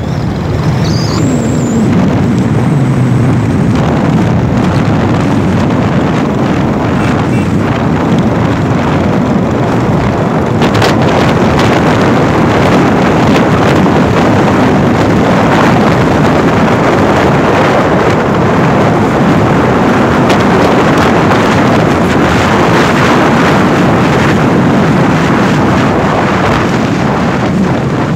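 Wind rushing over the microphone of a moving motorcycle, mixed with the steady running of its engine and tyre noise on the road.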